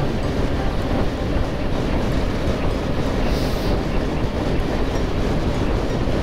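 Yamaha XJ600 motorcycle under way: a steady rush of wind on the microphone mixed with engine and road noise.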